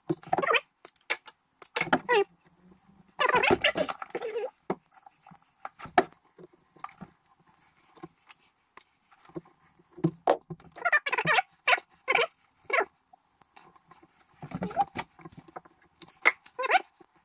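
Clicks and rattles of a hand crimping tool as ferrules are crimped onto the ends of heating-control wires, coming in irregular clusters with short quiet gaps.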